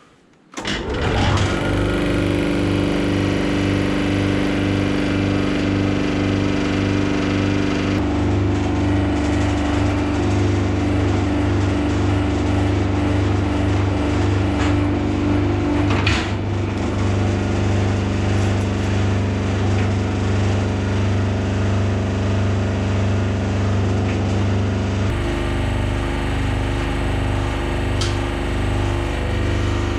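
Wool press hydraulic pump unit starting up about half a second in and running steadily with a pulsing note, its sound shifting three times as the control valve lever is worked to move the newly rebuilt hydraulic rams.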